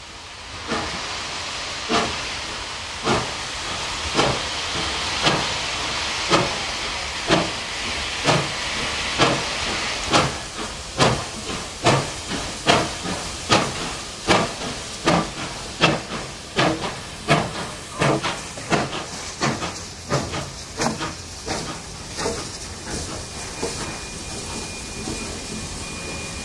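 Two NSW 38 class two-cylinder Pacific steam locomotives, 3801 and 3830, double-heading past at slow speed and working hard: sharp exhaust beats about one a second, quickening slightly, over a steady steam hiss. The beats grow fainter near the end as the engines go by, and a thin steady high tone comes in.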